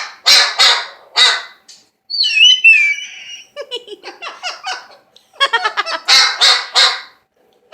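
Pet bird imitating a dog's bark: a quick run of about four barks, a gliding whistle about two seconds in, then choppy calls and another run of barks near the end.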